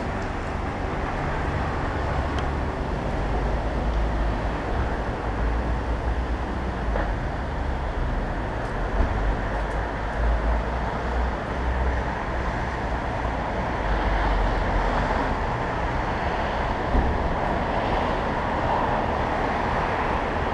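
Honda CBF motorcycle engine running steadily at low speed, a continuous low rumble over city street traffic noise.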